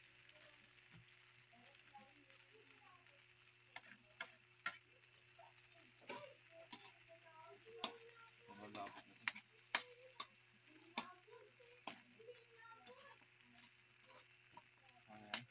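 Metal spatula scraping and clicking against a wok while vegetables are stirred through a thick sauce, over a faint steady sizzle. The clicks come irregularly, more often in the second half.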